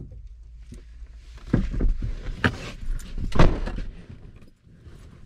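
A man climbing into a pickup truck's cab: a string of knocks and thumps with rustling as he gets in, sits down and pulls the driver's door shut.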